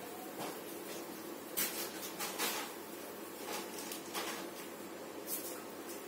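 Hands pressing and shaping soft sabudana-and-potato dough around a filling: a few short, soft squishing rustles over a steady background hiss.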